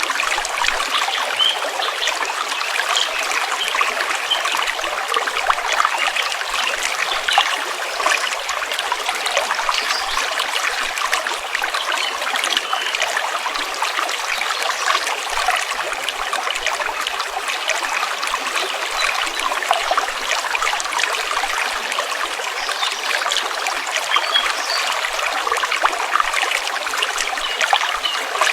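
A stream flowing steadily, a continuous trickling, babbling rush of water with no low rumble.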